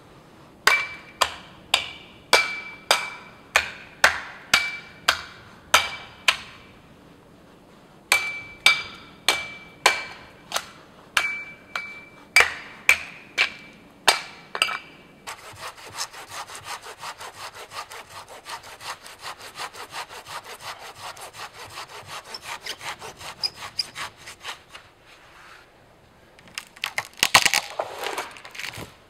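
Hand saw cutting a small tree: sharp strokes about two to three a second, with the blade ringing, in two spells. Then a long run of quicker, lighter strokes, and near the end a few loud cracks of wood.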